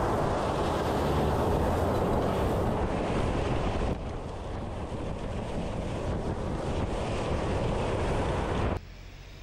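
2021 Ford Bronco driven hard on loose gravel: engine running with tyres spinning and spraying gravel, a loud steady rush of gravel and tyre noise. It drops in level about four seconds in and falls away sharply near the end.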